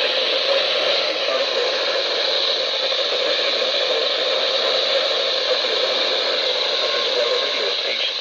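Steady radio static hiss from a weather radio receiver picking up a weak NOAA Weather Radio signal.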